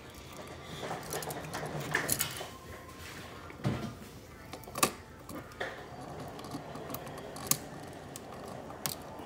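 Handling noise of a duplex wall receptacle and the stiff aluminum wires screwed to it: scattered small metallic clicks and taps with light rubbing between them.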